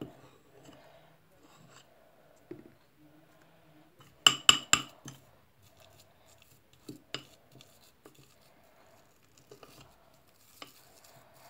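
Metal spoon stirring and scraping a thick dish-soap and cornstarch slime in a bowl, with a quick run of clinks against the bowl about four seconds in and another clink near seven seconds.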